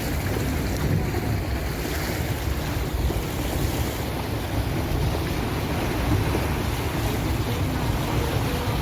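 Steady rushing noise of water and wind with a heavy low rumble, as from a vehicle moving along a flooded, rain-soaked road, with wind buffeting the microphone.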